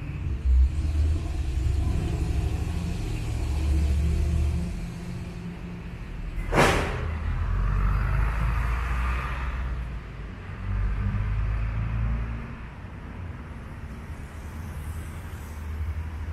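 Street ambience: a low, uneven rumble of passing vehicle traffic, with one sharp knock about six and a half seconds in.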